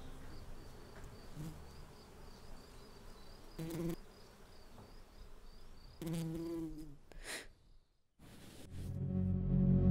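Faint buzzing of a honeybee close by, with two brief pitched sounds partway through. Music swells in near the end.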